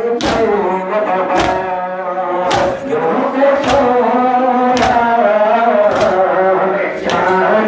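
Men's voices chanting a Shia mourning lament, cut by a sharp collective chest-beat (matam) about once every second, seven strikes in all, as the crowd strikes their chests in unison.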